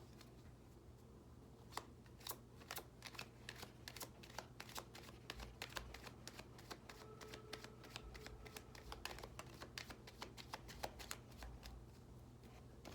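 A deck of tarot cards being shuffled by hand: faint, dense, irregular clicking and flicking of cards.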